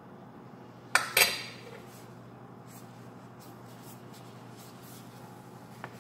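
Metal spoon clinking twice in quick succession against a frying pan about a second in, with a short ring, followed by faint light taps.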